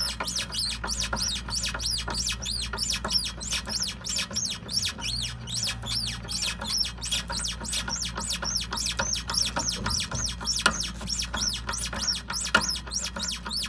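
Rapid rhythmic squeaking, about four high squeaks a second, over a steady low hum. This is an abnormal noise that the owner puts down to a car's stabilizer (sway bar) link.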